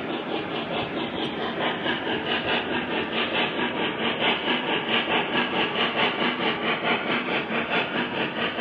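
Lionel Legacy O-gauge C&O Mallet model steam locomotive running past, its onboard sound system giving a steady, even steam chuff at about four beats a second over the rumble of its wheels on the track.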